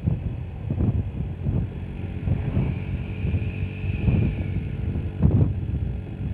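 Road vehicle engine noise under heavy wind buffeting on the microphone, in irregular low rumbling gusts.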